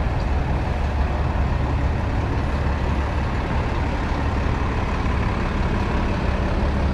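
Busy city street traffic, dominated by the steady low rumble of a heavy vehicle's engine running close by.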